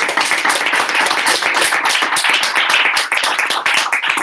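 An audience applauding: a dense, steady run of many hands clapping at once.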